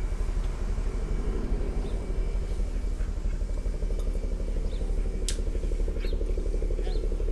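A motor vehicle's engine running steadily, with one sharp click about five seconds in.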